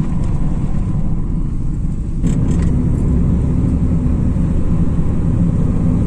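Car driving, heard from inside: a steady low rumble of road and engine noise that grows heavier about two seconds in.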